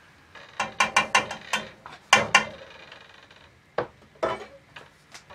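A spoon clicking and knocking against an enamel cooking pot as chowder is stirred: a quick run of sharp clicks over the first couple of seconds, then two single knocks about four seconds in.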